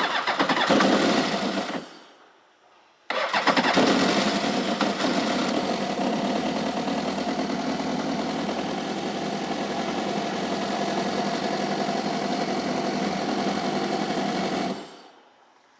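A 2008 Kawasaki STX-15F jet ski's four-stroke, four-cylinder engine is started. A first start fades out after about two seconds. The engine fires again abruptly about three seconds in, idles steadily for about eleven seconds, and is shut off near the end. The seller says one cylinder has low compression.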